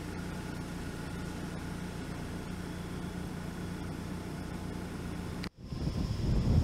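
Steady low mechanical hum with a few faint fixed tones, which cuts off abruptly about five and a half seconds in. Gusty wind buffeting the microphone follows.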